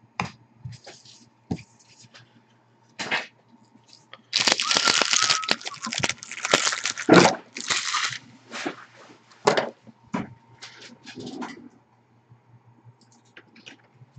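Handling noise: scattered clicks and knocks, then about four seconds of loud rustling and scraping near the middle, followed by a few more clicks.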